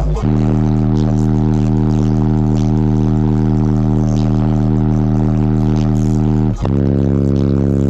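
Car audio subwoofers playing loud, sustained bass notes, one long held note, then a short break about six and a half seconds in before another held note.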